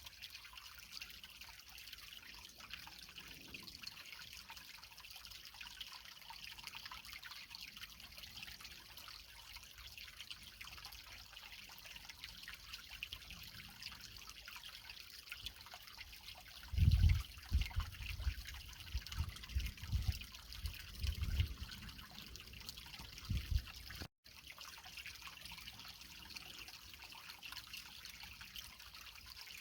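Small creek trickling over rocks, a steady high splashing hiss. About halfway through comes a run of low thumps lasting several seconds, and near the end the sound cuts out for a split second.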